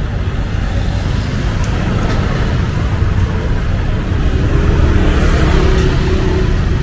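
City street traffic: motor vehicles running past in a continuous rumble, with one engine growing louder about four seconds in.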